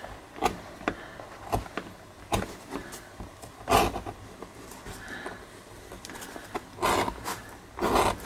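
Edge beveler shaving the edge of a small leather tab: an irregular run of short scrapes and clicks, with longer, louder scrapes about four, seven and eight seconds in.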